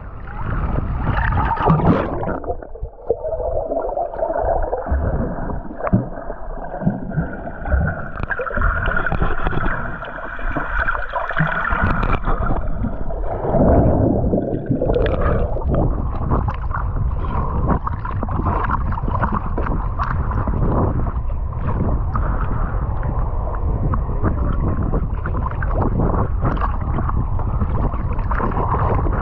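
Sea water splashing and gurgling against the microphone as a swimmer swims backstroke. For about ten seconds near the start the sound is muffled and gurgling, then it turns to steady splashing with many short splashes.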